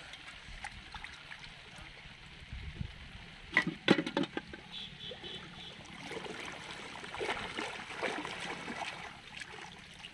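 Shallow water sloshing and splashing as a person wades and works in it, with a quick cluster of sharp knocks and splashes about four seconds in.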